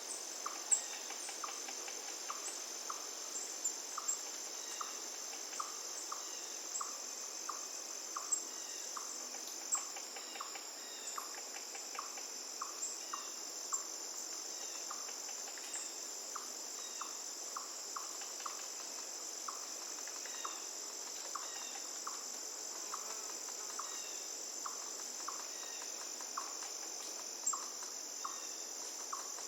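Insects trill steadily at a high pitch over a faint running-water hiss from the river. Short ticks repeat a little more than once a second, with a few faint chirps.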